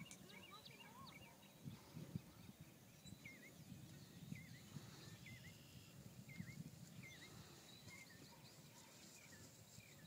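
Quiet open-air ambience: a bird repeats short chirping calls about once a second, over a faint low rumble.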